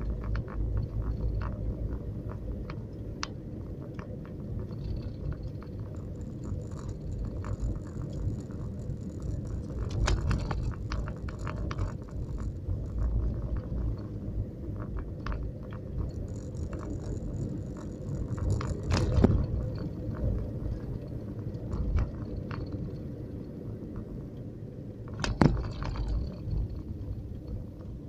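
Car interior noise while driving at low speed on a rough road: a steady low road rumble with frequent small clicks and rattles, and two louder knocks, one about two-thirds of the way through and one near the end.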